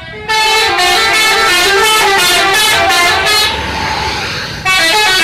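Bus telolet horn, a multi-tone musical horn, playing a quick tune of stepped notes for about three seconds, then sounding again briefly after a short pause.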